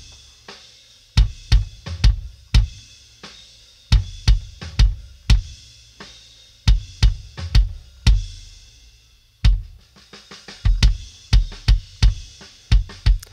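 Soloed rock kick drum track played back fully processed with all its mixing plugins, including an SSL channel-strip EQ: deep, fat thumps with a sharp attack in a driving rock pattern, the hits often falling in quick runs of four or five. A faint high wash of cymbal spill sits between the hits.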